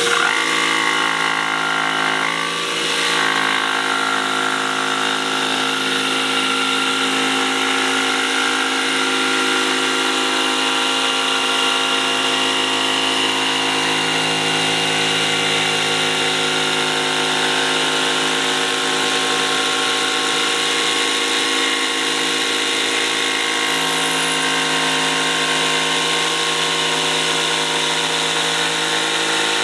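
Ridgid Octane 18V brushless cordless jigsaw cutting 3/4-inch birch plywood with its orbital action set to 0 for a clean cut, running steadily throughout, with a vacuum drawing dust through a hose on the saw's dust port.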